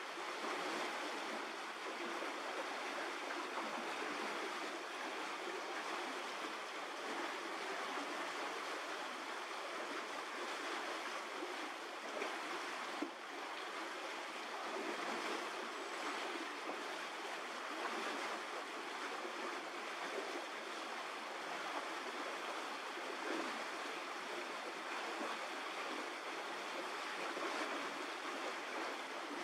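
Steady, even rushing noise with no clear events in it, apart from one brief click about 13 seconds in.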